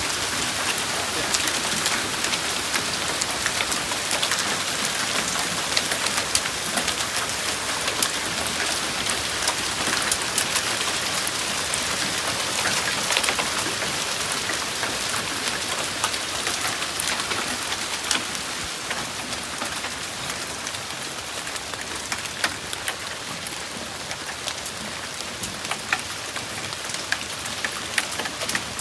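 Hailstorm: a dense, steady rattle of hailstones striking hard surfaces, with many sharp individual impacts standing out, easing a little about two-thirds of the way through.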